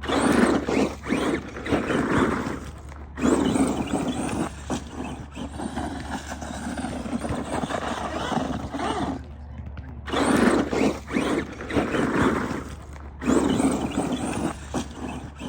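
Small electric RC trucks running hard on skatepark concrete: motors whining and tyres scrabbling in surging bursts, cutting out briefly about 3 seconds in, again around 9 to 10 seconds, and once more near 13 seconds.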